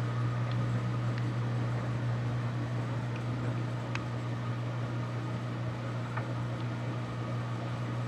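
Steady low machine hum with a fainter higher whine, unchanging throughout, with a few faint ticks.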